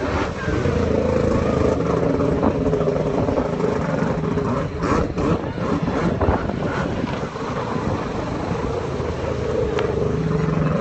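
Jet ski engine running, its pitch mostly steady with small rises and falls.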